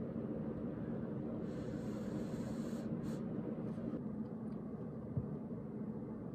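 Instant soba noodles being slurped from a cup for about a second and a half, then faint crackling as a mandarin orange's peel is torn, over a steady low room hum.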